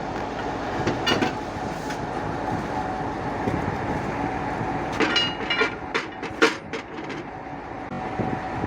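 Concrete pump machinery running steadily, with sharp metal clanks about a second in and a cluster of clanks and clicks between five and seven seconds.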